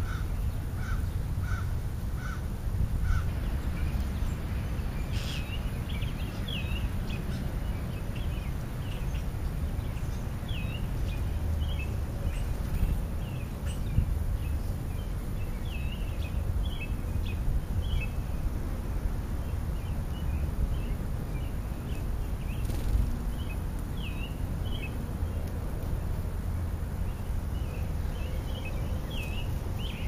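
Sparrows and starlings feeding, chirping in a steady scatter of short, high chirps, over a steady low rumble. In the first three seconds a bird gives a run of six short calls, about two a second.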